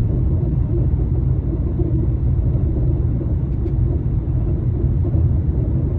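Steady low road and drive rumble of a Mercedes-Benz W211 on the move, with a faint click about three and a half seconds in. The owner suspects worn bushings on the driver's side are making an abnormal noise.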